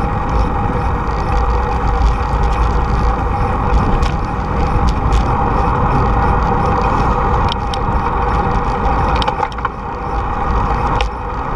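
Wind rushing over the microphone of a camera on a moving bicycle, a loud steady rumble, mixed with the steady noise of freeway traffic. A few sharp clicks sound through it.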